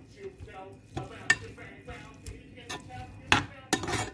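Kitchen utensils knocking and clattering during food preparation: irregular sharp knocks, the loudest about three and a quarter seconds in, followed by a short burst of clatter near the end.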